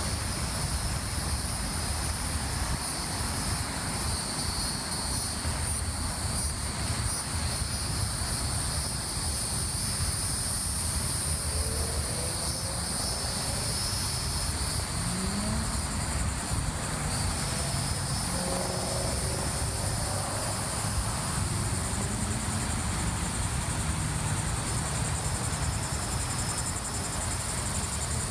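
Steady, high-pitched insect chorus that holds unbroken throughout, over a constant low rumble.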